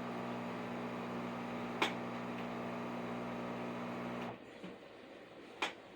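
Steady electrical hum from soldering rework equipment that cuts off suddenly about four seconds in, with a light click near the middle and another near the end.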